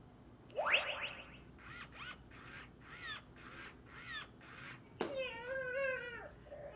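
Rizmo electronic robot pet toy playing synthesized sounds as it begins evolving into its final form. A quick rising sweep comes about half a second in, then a run of about six rhythmic chirping beats. About five seconds in, after a click, a warbling, meow-like cartoon voice starts.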